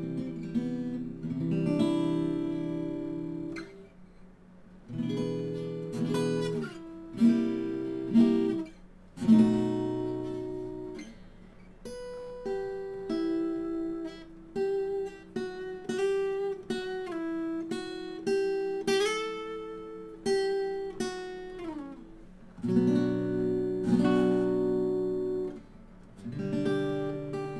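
Epiphone Hummingbird Pro acoustic-electric guitar played plugged in through its pickup: strummed chords with a brief pause, then a picked melody of single notes in the middle, then strummed chords again near the end.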